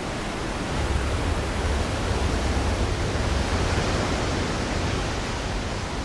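A large waterfall pouring down granite: a steady rushing of falling water with a low rumble underneath.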